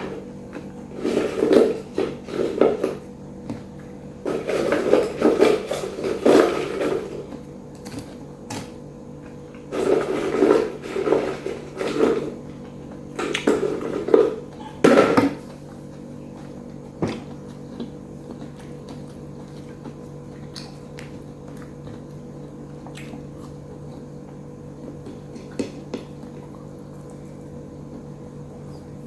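Close-up eating sounds: chewing and crunching of fried food, in several bursts during the first half and only a few scattered clicks after that. A steady low hum runs underneath.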